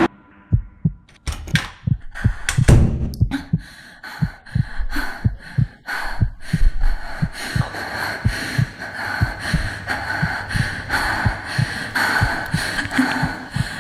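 Sound-design heartbeat: low thumps, sparse at first, then quickening to about three a second. Sharp clicks and a steady high ringing tone run over it from a few seconds in.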